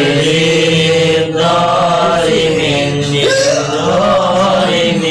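A man chanting Islamic prayers in a slow, melodic recitation with long held notes that glide up and down. This is ruqyah recitation, sung over a person to drive out a possessing jinn.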